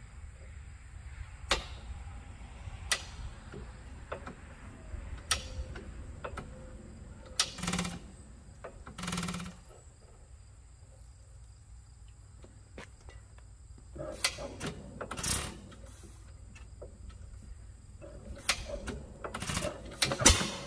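Scattered sharp clicks and short rattling bursts of metal from an antique hit-miss engine being handled at its ignition and flywheel side. The engine is not running.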